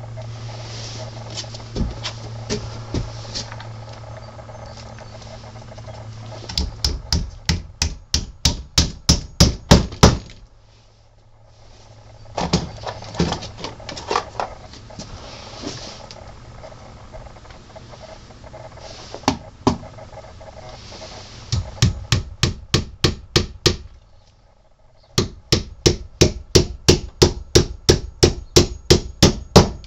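Hammer blows on a wooden honey super, in several runs of quick, even strikes about three a second with short pauses between.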